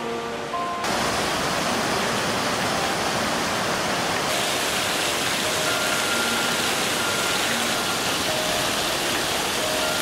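Steady rush of running water that starts abruptly about a second in, under soft background music of plinking mallet-like notes.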